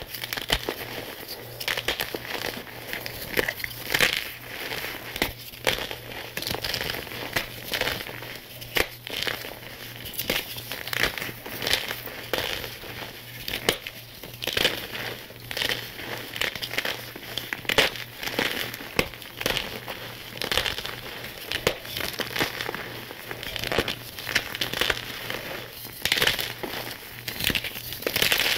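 Blocks of dyed gym chalk crushed and crumbled between the fingers into loose chalk powder: a dense, irregular run of dry crunching and crackling.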